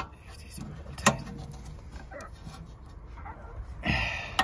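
Metal clinks of a ring spanner on the rear brake caliper's nuts, two sharp clicks about a second apart. Near the end there is a short high whining sound.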